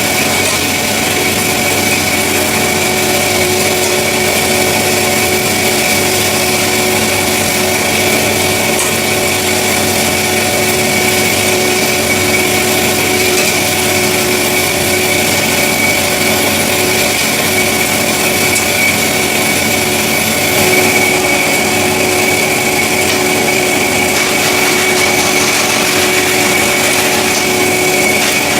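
CORMAK S-200R semi-automatic metal-cutting band saw running steadily, a constant high whine over the noise of the motor and blade.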